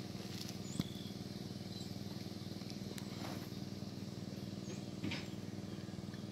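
A steady mechanical drone from a running motor or engine, even in pitch throughout, with a few faint bird chirps and small clicks over it.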